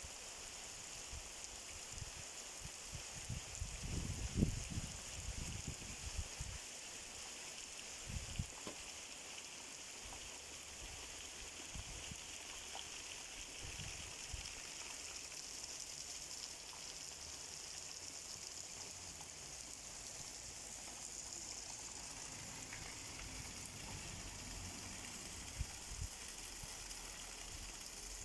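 Steady rain falling, an even hiss that holds throughout. A few low thumps come a few seconds in and again about eight seconds in.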